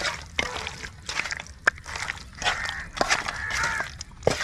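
A hand squelching and kneading marinated chicken pieces in thick wet masala in a steel bowl, with irregular wet squishes and small clicks against the bowl.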